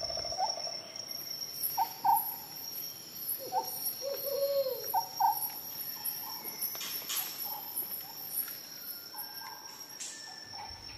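Steady high-pitched insect trilling, like crickets, with short chirping calls scattered through it and one longer, bending call about four and a half seconds in.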